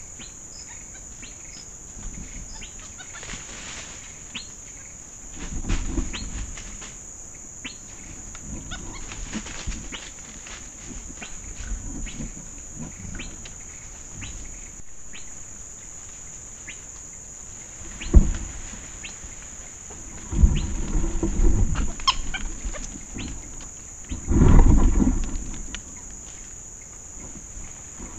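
Steady high-pitched drone of rainforest insects, with scattered clicks and bouts of rustling and bumping in the dry leaf litter close to the microphone. The loudest bouts come a little past halfway and shortly before the end.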